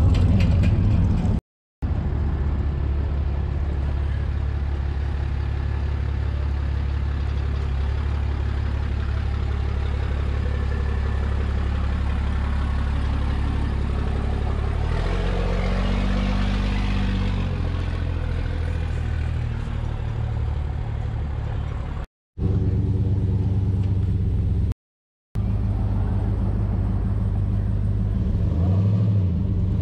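Vehicle engines idling with a steady low rumble, the engine note shifting and briefly rising about halfway through. The sound cuts out completely for a moment three times.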